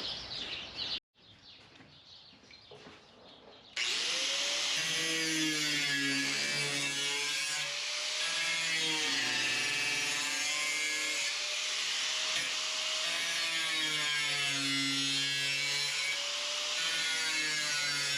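A power tool cutting through sheet-steel floor pan. It starts about four seconds in and runs steadily, its pitch wavering as the motor loads and unloads in the cut.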